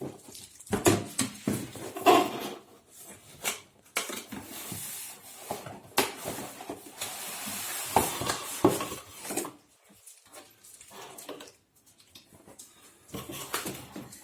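Plastic parts and packaging of a vacuum cleaner being handled: a string of knocks and clatters with rustling, busiest in the first half and sparser near the end.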